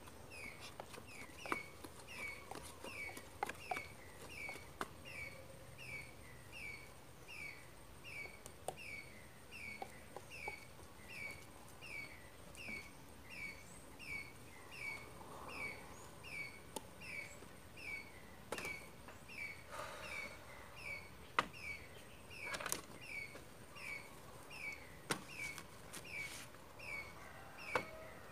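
A stick tamping pork filling down into a bamboo tube, giving scattered knocks, the sharpest ones about two-thirds of the way in. Behind it a bird repeats a short falling chirp very evenly, about three times every two seconds.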